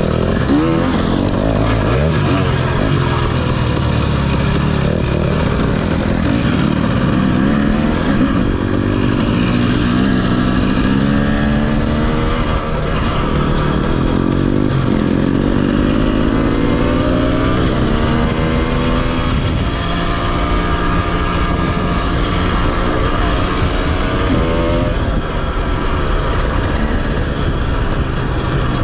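KTM 250 dirt bike engines being ridden hard on trail, the pitch climbing and dropping again and again as the throttle is worked and gears change.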